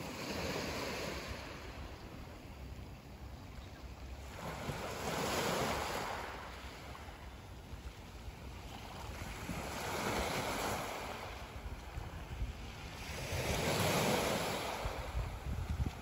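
Black Sea waves breaking and washing onto a pebble beach, the surf swelling and fading four times, about every four to five seconds, with the last swell the loudest. Wind rumbles on the microphone underneath.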